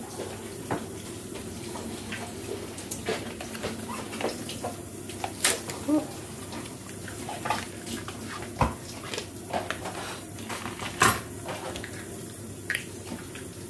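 Irregular small clicks, taps and rattles of batteries being fitted into a battery-powered handheld milk frother, the sharpest clicks about five and eleven seconds in.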